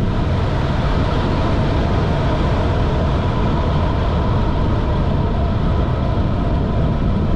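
Wind buffeting the microphone over the tyre noise of a road bike rolling fast on asphalt, a steady rush as speed falls from about 40 to about 30 mph.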